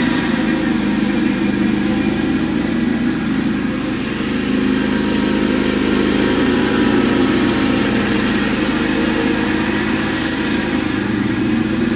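Cub Cadet riding lawn mower's engine running steadily as it mows grass, a continuous even drone that holds from start to finish.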